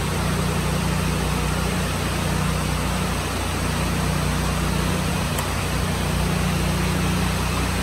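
Portable generator's engine running steadily, a constant low hum.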